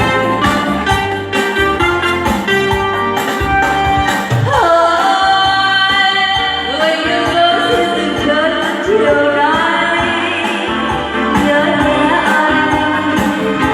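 Instrumental break in a Vietnamese song: backing music with a steady beat and bass under a melody line that slides between notes.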